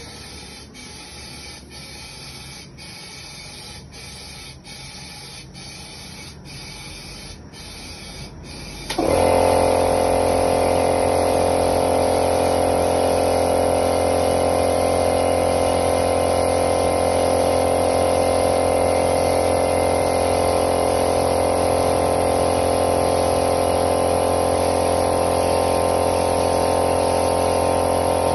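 Powder-coating spray hissing in short, evenly spaced bursts. About nine seconds in, a loud motor-driven machine starts and runs steadily with a hum.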